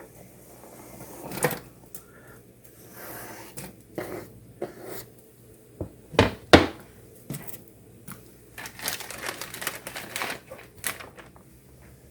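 Kitchen handling clatter: scattered clicks and knocks of cookware and utensils being moved about, with two sharp knocks a little past the middle and a quick run of small clicks and rattles after.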